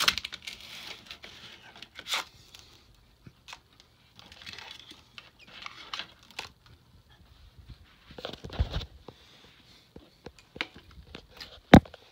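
Handling noise: paper and cardboard rustling with scattered small clicks and knocks as things are moved about, a heavier thump about eight and a half seconds in and a sharp knock near the end.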